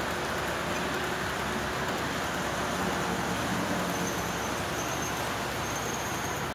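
HO scale model passenger train rolling along the track: a steady rolling noise of its wheels on the rails that stops abruptly at the end.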